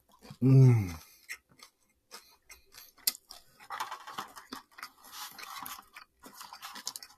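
A short hummed vocal sound from the eater about half a second in, then close-up eating sounds: chopsticks clicking against a plastic takeout container, rustling plastic and chewing.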